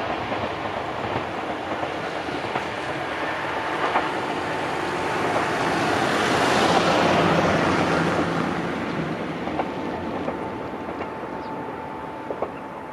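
Izuhakone Railway Sunzu Line electric train running on the line; its noise swells to a peak about seven seconds in, then fades.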